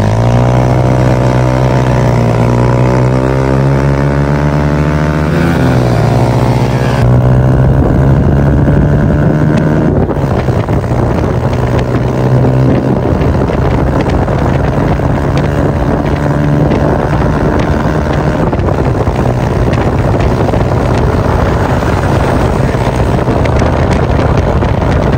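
Single-cylinder motorcycle engines of a Honda CB150F and a Yamaha YBR125 at full throttle in a drag race, the pitch climbing and then dropping at a gear change about six seconds in. Wind rushes over the microphone.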